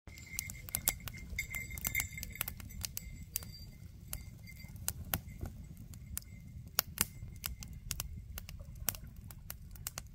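Small hard objects being handled, giving irregular clicks and taps over a low steady rumble.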